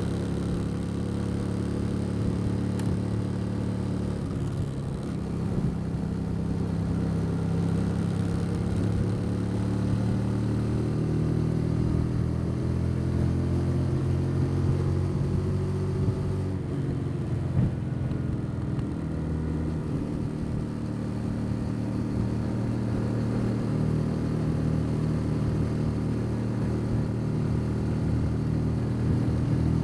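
Motorcycle engine running steadily under way, recorded from on board the bike. Its note rises and falls slightly with small throttle changes.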